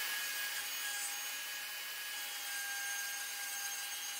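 Plunge router running at a steady high whine while its bit cuts a through slot in veneered OSB.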